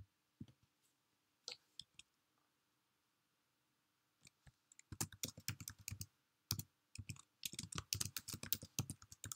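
Typing on a computer keyboard: a few scattered key clicks in the first two seconds, a pause, then a quick run of keystrokes from about five seconds in.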